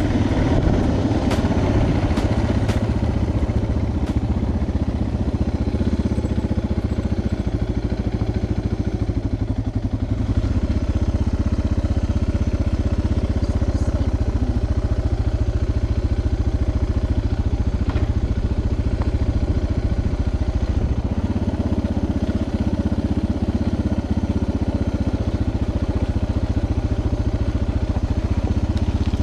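Suzuki DR650 dual-sport motorcycle's single-cylinder four-stroke engine running steadily while riding.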